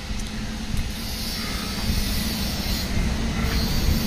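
Steady low rumble of outdoor background noise with a faint steady hum.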